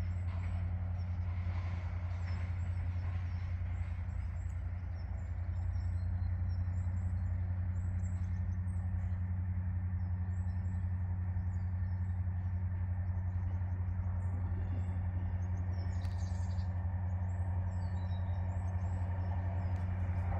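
A steady low mechanical hum, like a vehicle or train engine running, with small birds chirping repeatedly over it.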